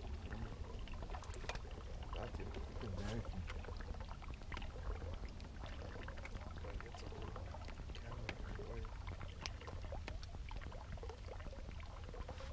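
Water lapping lightly against a boat hull, with scattered small clicks over a steady low rumble.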